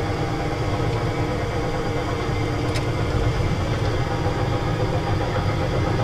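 Amusement-ride tractor car's drive motor running steadily as it travels along its guide track: an even hum with a low rumble.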